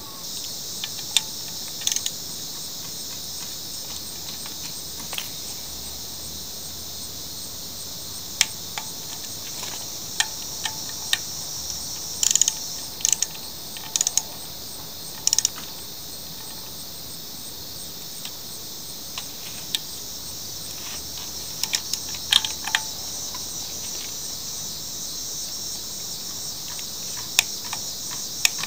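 Insects chirring steadily in a high band, with scattered clusters of sharp clicks from a ratchet torque wrench tightening the sump bolts of a Briggs & Stratton mower engine to 90 inch-pounds.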